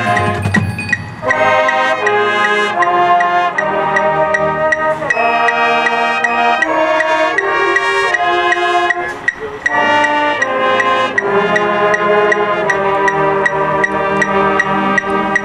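Marching band brass playing sustained, changing chords in its competition show music, with a steady high tick keeping the beat about three times a second.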